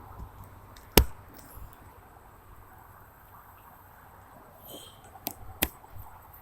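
Sharp handling clicks: one loud click about a second in, then two smaller clicks near the end, over faint steady background noise.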